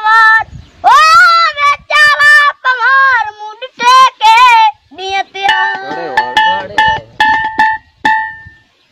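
A song with a high singing voice holding and bending its notes, with short plucked or struck notes in the second half; the music fades out near the end.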